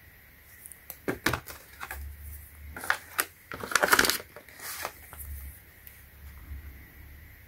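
Stiff clear plastic blister packaging crinkling and clicking as a tube of cement is pushed back into it: an uneven run of crackles and snaps, loudest about four seconds in.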